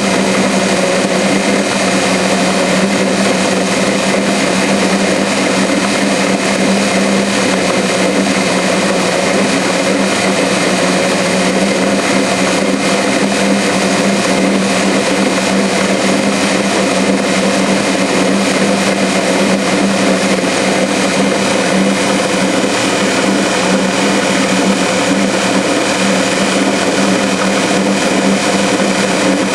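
Metal lathe running steadily under power feed while a CCMT carbide-insert turning tool takes a cut, with a steady hum and a dense mechanical whir.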